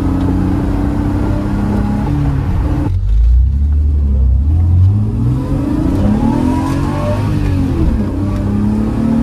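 BMW E30 325i's straight-six heard from inside the cabin under way. About three seconds in the engine note climbs steadily as the car accelerates, then rises and falls through the gears.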